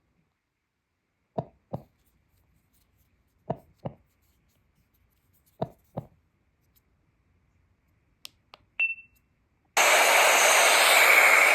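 Button presses on a Flowtune portable sound machine: three paired clicks about two seconds apart, then a short high beep. About ten seconds in, the machine starts playing a loud, steady hiss of noise.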